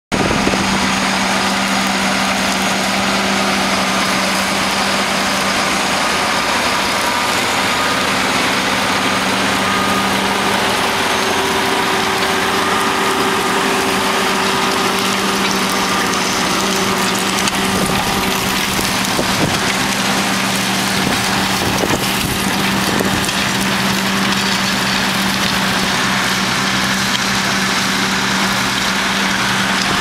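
JCB Fastrac tractor's engine running steadily at a constant pitch while it pulls a reversible plough through stubble.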